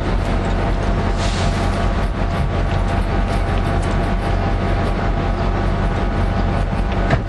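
Diesel locomotive engine running steadily with a deep, even hum, with a short sharp click near the end.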